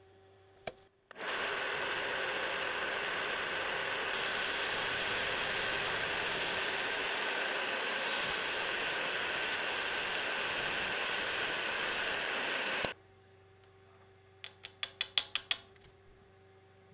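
Milling machine running and cutting with a 60-degree three-tooth carbide cutter, milling gripping grooves into a steel toe-clamp jaw: a steady loud cutting noise with a high whine, starting about a second in and cutting off suddenly a few seconds before the end. Then a quick run of light clicks.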